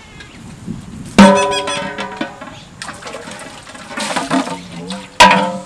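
An aluminium stockpot clanks and rings as it is set down on stone. This is followed by water poured into it from a scoop, and a second metallic clank and ring near the end.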